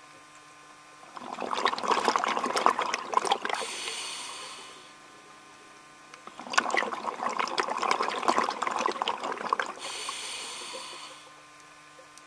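Scuba diver breathing through a regulator underwater: two breaths, each a burst of exhaled bubbles gurgling for two to three seconds followed by the hiss of the next inhalation. A faint steady hum runs beneath.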